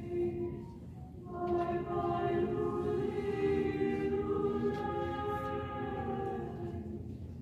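A mixed-voice high school chamber choir singing a cappella in harmony. After a brief breath about a second in, the voices come in together on long held chords that fade away near the end.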